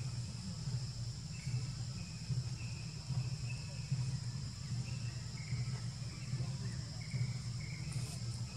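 Steady high-pitched drone of insects, with short high chirps coming and going, over a constant low rumble.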